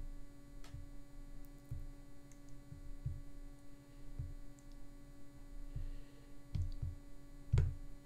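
A few sharp computer-mouse clicks and soft low knocks from handling the mouse on the desk, the loudest near the end, over a steady electrical hum.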